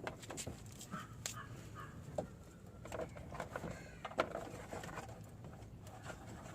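Scattered light clicks and taps of a reverse-camera cable being fed down through a car's trim, with birds calling faintly in the background.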